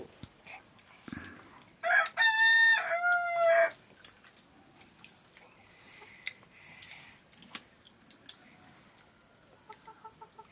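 A rooster crows once, about two seconds in: a call of nearly two seconds, held on one note and then stepping lower. Faint clicks and taps from eating off steel plates sound around it.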